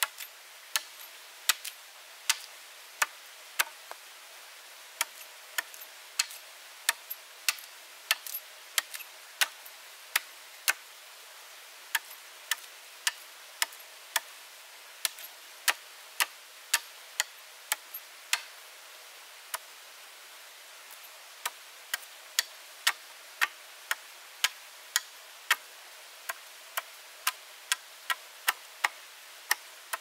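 A run of sharp, irregular knocks, about one to two a second, with a short pause about two-thirds of the way through, over a faint steady hiss.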